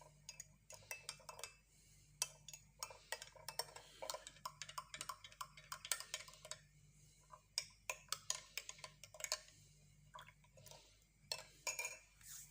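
A spoon tapping and clinking in many quick, irregular taps as ground cinnamon is spooned into a glass of citrus juice.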